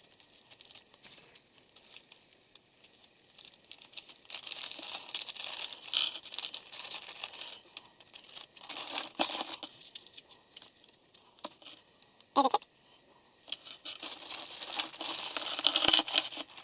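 Thin clear plastic component bags crinkling and rustling as they are handled and opened, in irregular spells with quieter gaps between them.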